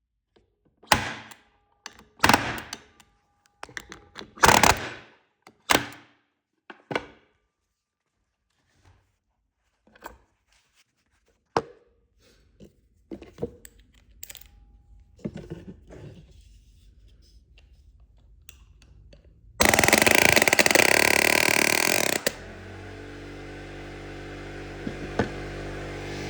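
Pneumatic palm nailer hammering in short bursts as it drives a 3-inch deck screw like a nail. There are five loud bursts about a second apart, then lighter, irregular knocks. About twenty seconds in, a loud steady noise lasts almost three seconds, followed by a quieter steady sound with held tones.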